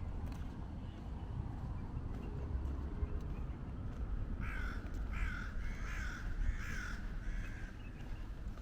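A crow cawing, a run of about four harsh caws spaced under a second apart, starting about halfway through, over a steady low outdoor rumble.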